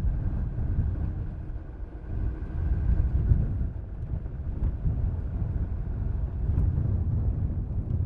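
Low, uneven rumble of a car on the move: road and wind noise that swells and eases.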